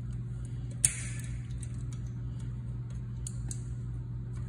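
Small metallic clicks and ticks of wire ring terminals and screws being handled at an electric range's terminal block: one sharp click about a second in and a couple of fainter ticks later, over a steady low hum.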